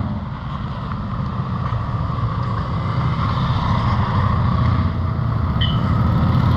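BMW F850GS parallel-twin engine running under way, with rushing wind noise, growing gradually louder. A brief high chirp sounds near the end.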